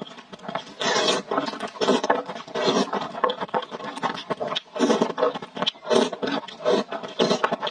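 Close, loud slurping of saucy instant noodles cooked in tomato, with repeated wet pulls about once a second and chewing between them.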